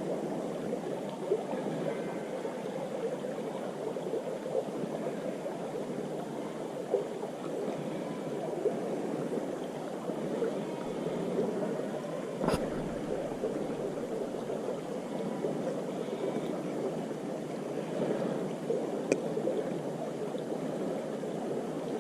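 Water of a small river running steadily, with a few short sharp clicks, the clearest about twelve seconds in.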